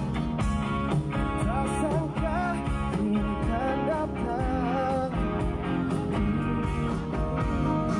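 Live pop-rock band playing through a big festival PA, with guitars and drums and a man singing the melody, whose voice comes in about a second and a half in.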